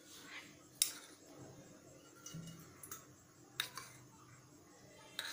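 Light metal clinks of a steel spoon striking a small steel bowl about four times as ghee is scooped out into a pot.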